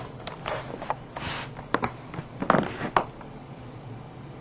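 Scattered light clicks and knocks with a short rustle a little over a second in, and the loudest knocks clustered about two and a half to three seconds in.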